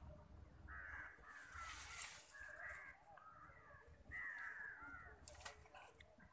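Crows cawing faintly in several bursts of harsh calls, about a second in and again about four seconds in.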